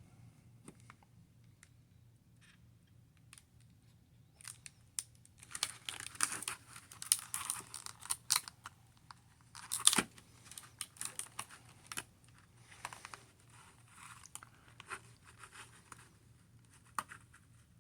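A knife's retail packaging being cut and pried open with another pocket knife. After a few quiet seconds come crinkling, scraping and scattered sharp clicks, with one loud snap about ten seconds in.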